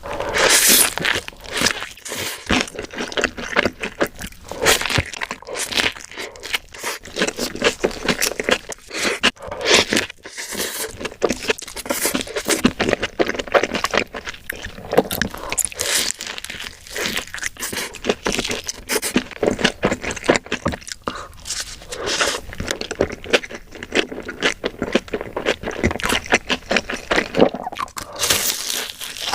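Close-miked eating sounds: someone biting and chewing crunchy food, a dense, continuous run of crisp crunches and crackles.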